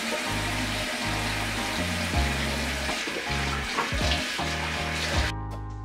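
Bathroom sink mixer tap running, its stream splashing into the basin as a face is rinsed, with background music and a steady bass line underneath. The water sound cuts off suddenly near the end, leaving the music.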